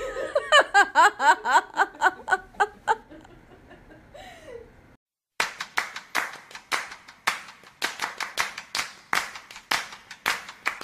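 A person laughing in short bursts. After a brief silence comes a steady run of sharp hand claps, a few each second.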